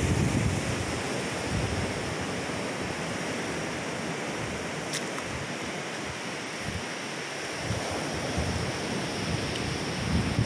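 Steady wash of surf breaking on the reef edge, with wind buffeting the microphone at the start and again near the end.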